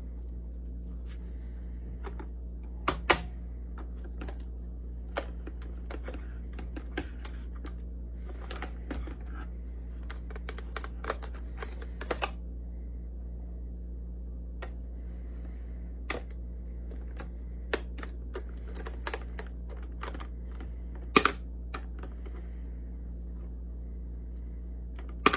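Scattered light clicks and taps, irregularly spaced, with louder ones about 3 s and 21 s in, over a steady low hum.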